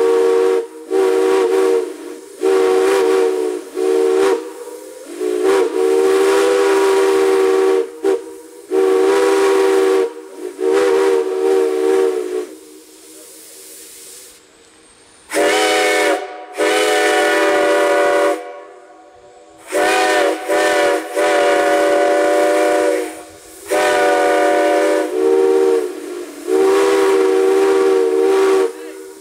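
Steam whistle blown in a series of blasts, long ones and short toots, each a chord of several tones sounding together, with steam hissing between blasts and a quieter pause a little before the middle.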